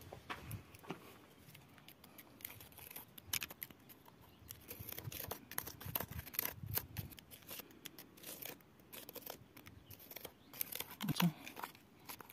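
Irregular scratching and scraping of grit and dirt against rock as a small hole in sandstone is cleared out by hand and with a twig, with short gritty crunches.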